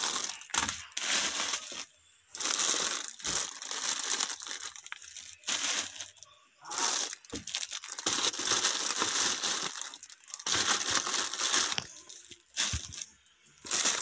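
Plastic-wrapped packs of Pancit Canton instant noodles crinkling and rustling as they are handled and shifted, in irregular stretches broken by short pauses.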